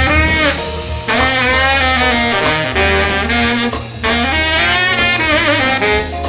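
Baritone saxophone playing jazz phrases over band backing with a steady bass line and drums, the phrases breaking briefly about a second in and again near four seconds.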